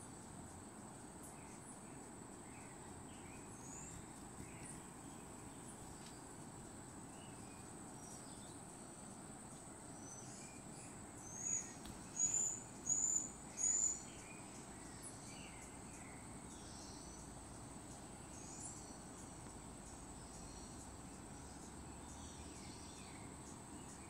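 Tropical forest ambience: a steady high insect whine under scattered faint bird calls, with a run of four loud, short bird calls about halfway through.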